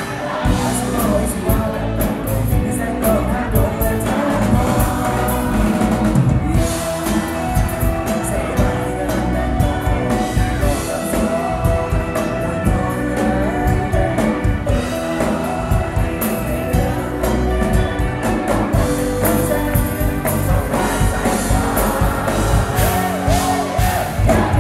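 Live band playing a song: electric guitars, bass, keyboard and drum kit, with a male singer.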